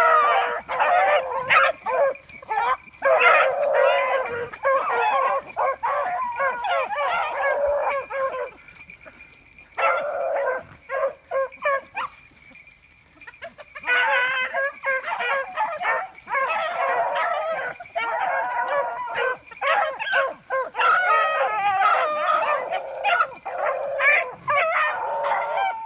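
A pack of beagles baying as they run a rabbit's trail, many voices overlapping. The chorus drops away for several seconds in the middle, then picks up again.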